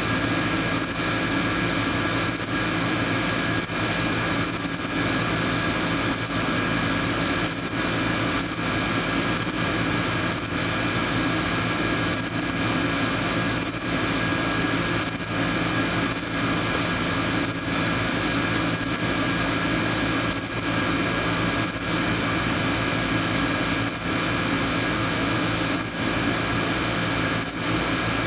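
Steady machine hum holding several fixed tones, over which a northern cardinal fledgling gives short, high begging chips about once a second while its mother feeds it.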